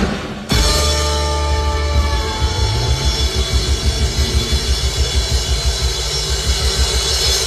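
Live pop-rock band with drum kit playing amplified at a soundcheck. The full band comes in suddenly about half a second in, with sustained chords over a fast, steady drum and bass rhythm.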